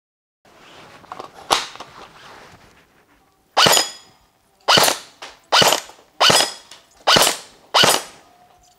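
Magazine being handled and clicked into an M4-style airsoft electric rifle, then six single shots about one a second.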